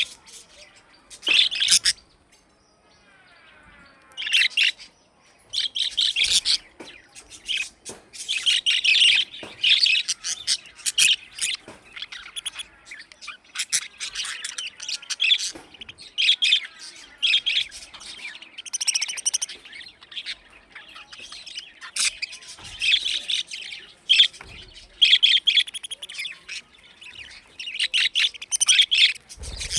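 Budgerigars (budgies) chirping in rapid, overlapping calls, with a short quieter lull about two seconds in.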